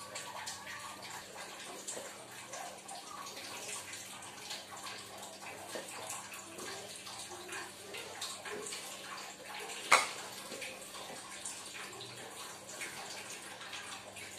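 Hands squeezing and working crumbly flour dough in a plastic tub: a faint, continuous crackly rustle with scattered small ticks, and one sharp knock about ten seconds in.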